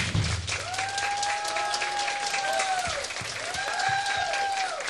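Audience applauding, with two long high calls rising and falling over the clapping.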